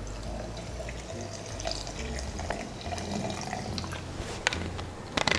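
Club soda poured from a plastic bottle into a stainless steel shaker tin: a steady stream of fizzy water splashing into the metal. A few sharp clicks near the end.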